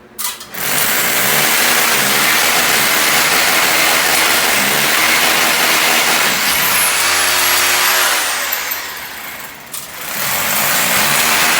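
Electric power tool running under load, cutting into a masonry wall and raising dust. It starts about half a second in, eases off for a moment around eight and a half seconds, then runs again from about ten seconds.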